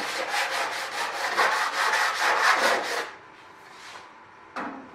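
Edge of a sheet-aluminium inspection cover rubbed back and forth on sandpaper laid flat on a bench: a quick run of scraping strokes, about five a second, for about three seconds, taking a little more off a tight edge to fit. A brief knock follows near the end.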